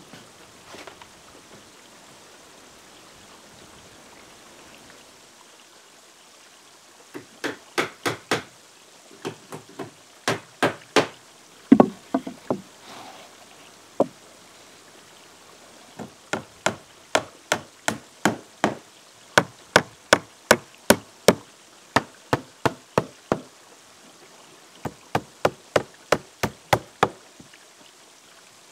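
Hammer nailing wooden shingles onto a roof: runs of sharp knocks, about three a second, with short pauses between runs, starting about seven seconds in.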